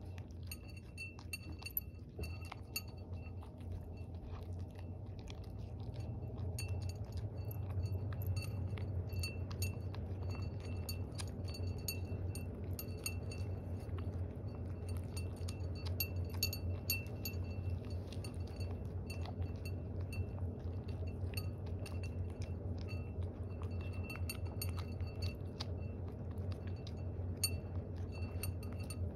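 Cat eating soft food from a ceramic bowl: chewing, with the metal fitting on its collar clinking and tinkling against the bowl many times. A steady low hum runs underneath.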